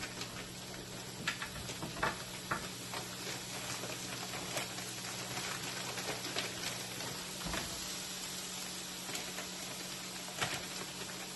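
Pre-cooked frozen chicken pieces going into a hot pan with broccoli, sizzling steadily, with scattered clicks and taps of the pieces and utensil against the pan.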